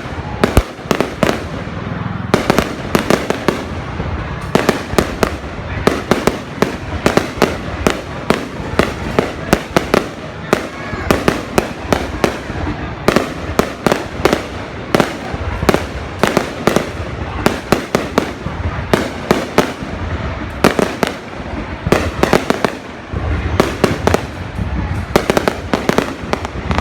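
Fireworks display in full barrage: sharp bangs several times a second over a steady crackling hiss, going on without a break.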